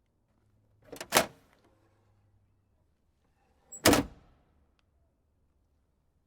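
Car trunk lid and latch, heard twice about three seconds apart: each time a light click followed at once by a louder thud.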